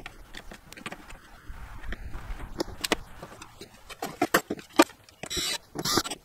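Handling noises on a car's bare metal floor pan: scattered clicks, taps and rattles of parts, seat belt buckles and a cordless drill being moved about, with two short, louder rasping bursts near the end.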